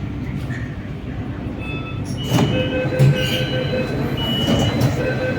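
Inside a metro train car at a station stop: steady low rumble of the train, a knock a little past two seconds in, then thin high tones sounding on and off.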